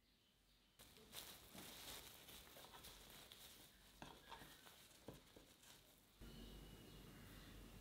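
Plastic cling film crinkling and rustling with many small clicks as hands stretch it and press it around a stack of cake layers; faint.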